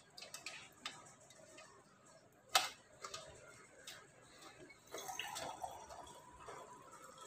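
Small clinks and taps of a steel spoon and steel tumbler against each other, with faint water dripping and trickling as freshly made chhena is rinsed in a cloth over a strainer. One sharper clink about two and a half seconds in, and a short soft wash of trickling a little after five seconds.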